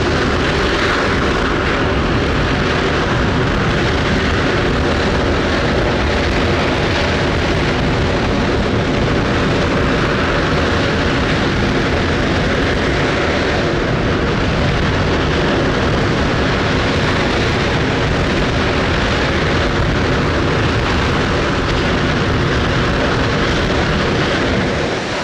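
Space Shuttle Main Engine (RS-25, burning liquid hydrogen and liquid oxygen) firing on a test stand: a loud, steady roar that drops off right at the end.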